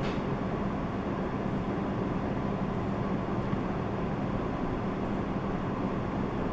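Steady indoor background noise: an even rumble with a constant low hum throughout.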